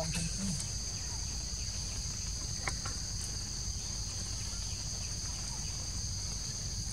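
A steady, high-pitched drone of insects calling together, over a low rumble.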